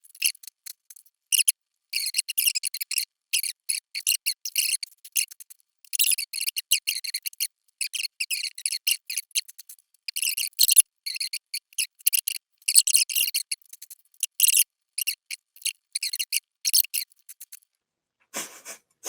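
Irregular runs of rapid, high-pitched clicking and crackling, broken by short pauses, stopping about a second and a half before the end.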